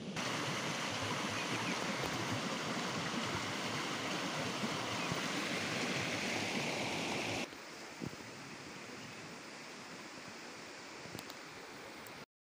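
Steady rushing noise that drops abruptly to a quieter hiss about seven and a half seconds in, then cuts off just before the end.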